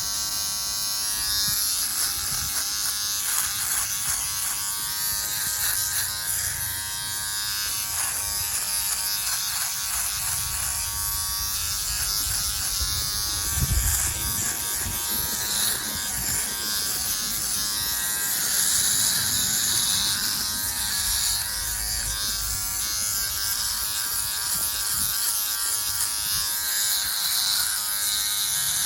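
Philips Norelco OneBlade electric trimmer running steadily while shaving a beard: a constant motor buzz with a high hiss from the oscillating blade cutting hair.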